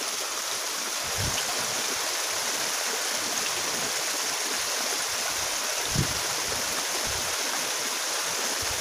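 Small stream running fast and steady, the water rushing over a low cascade. A brief soft low thump comes about six seconds in.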